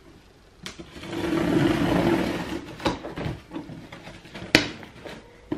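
Packing material rustling and crinkling in a cardboard shipping box for about two seconds as items are rummaged through, then two sharp knocks, the second the louder.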